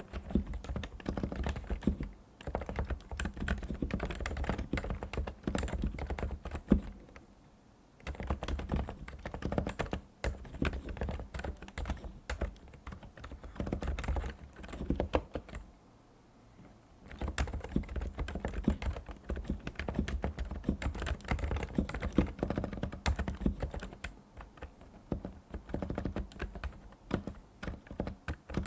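Typing on a Realforce R2 PFU Limited Edition tenkeyless keyboard with Topre electrostatic capacitive switches: a steady run of keystrokes that stops twice for about a second.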